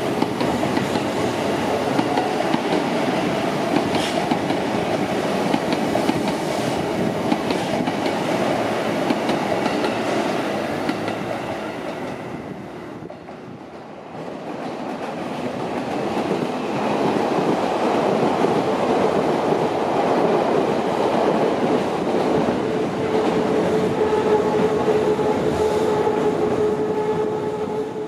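Electric commuter trains passing over and under a steel truss railway bridge: a steady rumble with wheels clattering over rail joints. It fades about halfway through, then builds again as another train passes, with a steady whine in the last few seconds.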